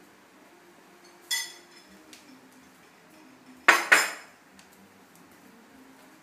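Hard clinks: one ringing clink about a second in, then two sharp, louder clatters close together about four seconds in.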